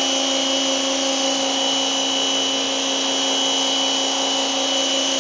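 WAP electric pressure washer running steadily, its motor and pump humming under the hiss of the water jet, washing mould and grime off a concrete wall.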